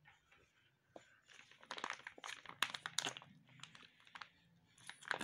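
Crinkling of a plastic squeeze pouch being handled and squeezed: a faint run of irregular soft crackles and clicks starting about a second in.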